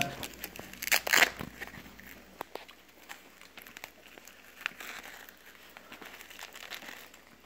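Clear plastic packaging crinkling and rustling as it is handled and opened, with a louder rustle about a second in, then scattered small crinkles and clicks.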